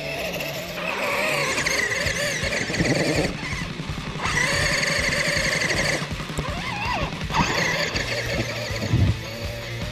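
Rock music soundtrack: a stepping bass line under a wavering high lead line that bends in pitch, with brief drop-outs of the high part.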